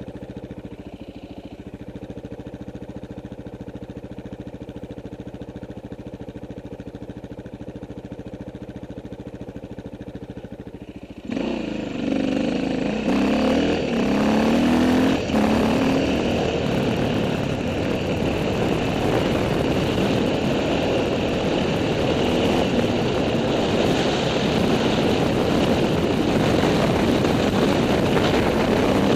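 Dirt bike engine idling steadily, then about eleven seconds in it revs and pulls away, its pitch climbing as it gathers speed, and runs on at riding speed under a steady rush of wind and tyre noise.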